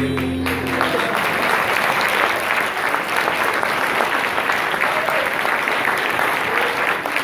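Audience applauding, a dense steady patter of many hands clapping. The last held note of the music fades out in the first second as the applause takes over.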